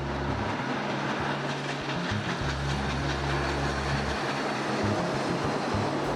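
Cotton Belt 819, a 4-8-4 steam locomotive, running past at speed with its passenger train: a steady rushing noise of the engine and rolling cars.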